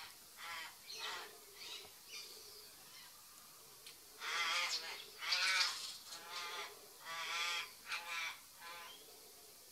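A crow cawing in a series of long, harsh, wavering calls, loudest between about four and six seconds in, while being harassed by a willie wagtail; a few short high chirps come between the caws.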